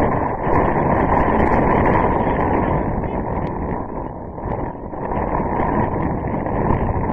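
Wind blowing across the microphone: a steady rushing noise with a few faint clicks.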